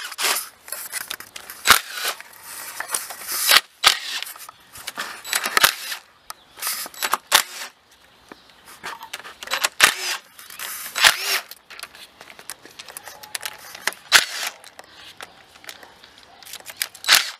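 Socket ratchet clicking in short runs as engine bolts are backed out one by one, with sharp metal clicks and clinks in between as bolts and tools are handled and set down.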